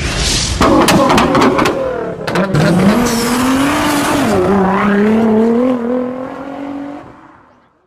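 A car engine revving, its pitch rising and falling over a harsh rush of noise, then fading out about seven seconds in.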